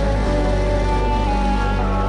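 Background music with sustained, held bass notes.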